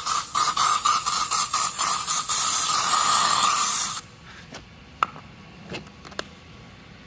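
Aerosol can of OFF! bug spray spraying onto a headlight lens: a continuous hiss that wavers in strength, cutting off abruptly about four seconds in. A few light clicks follow.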